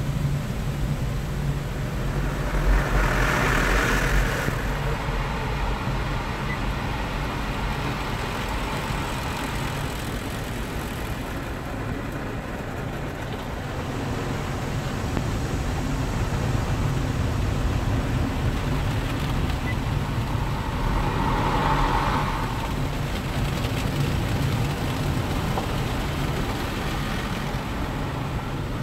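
Automatic car wash heard from inside the car's cabin: a steady rush of water spray and rotating brushes over a low hum, swelling twice, about three seconds in and again about twenty-two seconds in.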